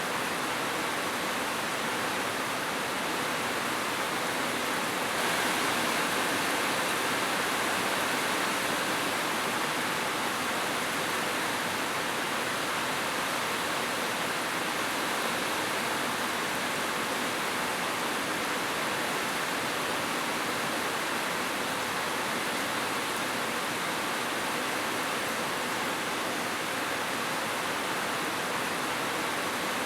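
Heavy rain falling steadily, a dense, even hiss that grows slightly louder about five seconds in.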